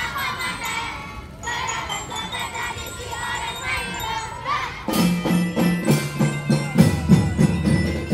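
Crowd of voices and children shouting. About five seconds in, a marching drum band starts playing loud, regular drum beats with low pitched tones, joined by bell-like chiming.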